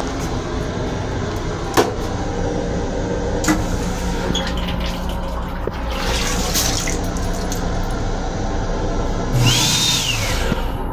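Restroom sink faucet in a Long Island Rail Road M7 railcar, running into the basin, over the steady low hum of the railcar. A few sharp clicks come in the first few seconds, and near the end there is a brief louder hiss with a whistle that rises and falls.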